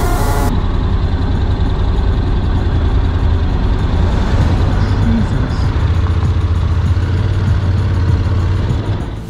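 Motorcycle engine running steadily at low speed in slow traffic, heard through a helmet-mounted camera as a deep, even drone. A brief electronic glitch noise sounds at the very start.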